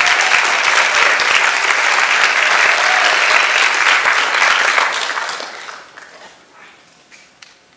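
Audience applauding, loud and steady at first, then dying away from about five seconds in.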